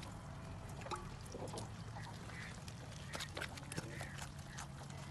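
Farmyard fowl calling in short bursts in the background, with light clicks of a steel ladle against a metal platter as broth is spooned over the bread.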